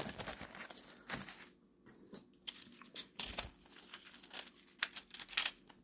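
Foil packaging crinkling as it is handled: a foil sleeve pouch and foil tablet blister packs, in scattered, irregular crackles.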